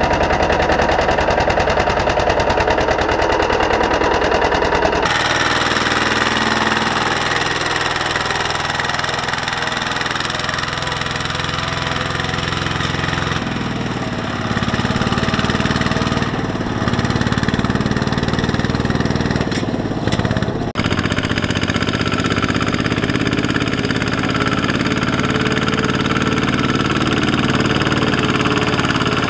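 Single-cylinder diesel engines of two-wheel walking tractors running under load as they haul loaded trailers through deep mud, with a rapid, even beat. The engine sound changes abruptly a few times where different shots are cut together.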